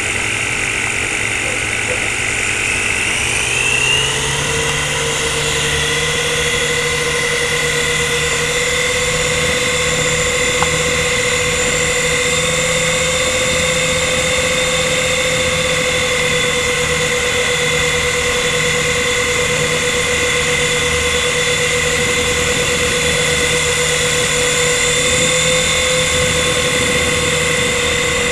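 S107c mini RC helicopter's small electric rotor motors whining. The pitch rises about three seconds in as the throttle comes up for takeoff, then holds a steady whine in flight.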